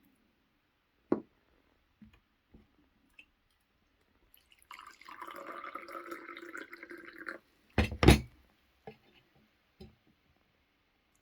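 Liquid poured into a container for about two and a half seconds, followed by two sharp knocks as something is set down. A single click comes about a second in.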